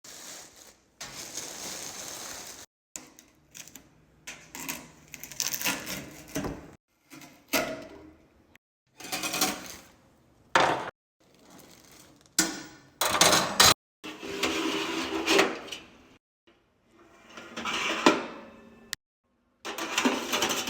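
Unboxing of a toaster oven: cardboard and plastic packaging handled in a series of separate rustles, scrapes and knocks. Several of them start and stop abruptly.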